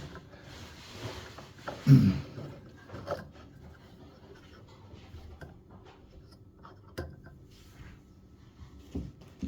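Faint rubbing and a few sharp small clicks as a ribbed rubber drive belt is handled and worked onto a washing machine's pulleys, with a brief low grunt about two seconds in.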